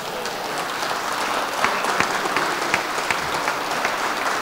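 Audience applauding: many hands clapping, swelling a little over the first second or so and then holding steady.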